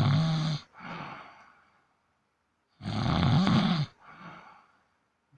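A 17-day-old baby snoring in its sleep: a loud, buzzing snore of about a second at the start and again about three seconds in, each followed by a softer breath that fades away.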